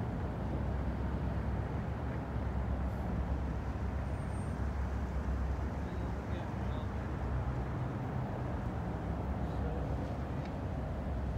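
A steady low rumble of outdoor background noise, even throughout, with no distinct events.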